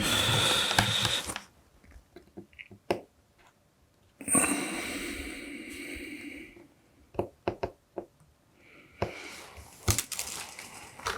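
Small clicks and taps of bench soldering work on a circuit board, with two short hissing bursts: one of about a second and a half at the start, and one of about two seconds a little before the middle that fades away.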